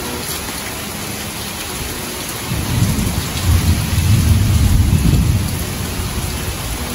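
Heavy rain falling steadily during a thunderstorm. A low rumble of thunder swells about two and a half seconds in and dies away about three seconds later.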